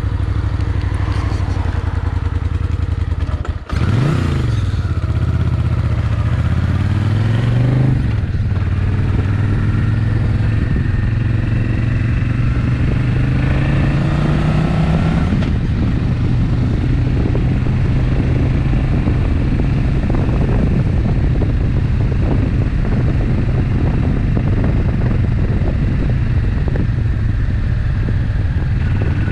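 Suzuki Intruder VS800's V-twin engine idling, then pulling away. The engine note climbs, drops about eight seconds in, climbs again and drops about fifteen seconds in, then holds steady at a cruise.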